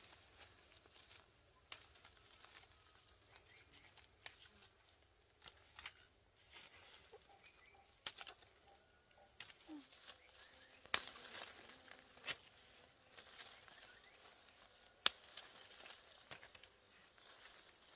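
Scattered light clicks and knocks over faint background noise, the loudest two about eleven and fifteen seconds in.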